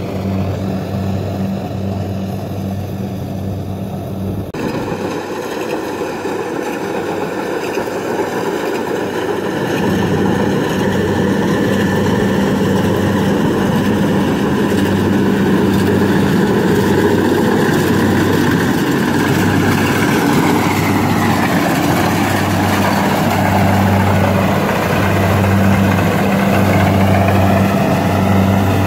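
Kubota rice combine harvester running while cutting and threshing: a steady diesel engine drone with a regular low throb, getting louder from about ten seconds in.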